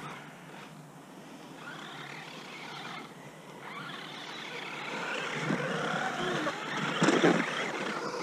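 Electric motor of a Redcat RC monster truck whining, rising and falling in pitch as the throttle is worked. It gets louder about seven seconds in.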